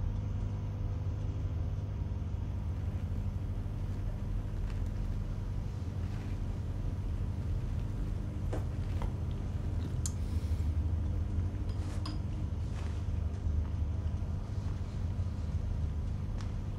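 Steady low hum of room tone, with a few faint clicks and clinks now and then.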